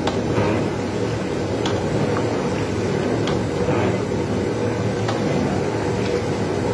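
A big aluminium pot of rice at a rolling boil over a strong flame: a steady low roar, with a few light knocks as a long stick stirs the pot.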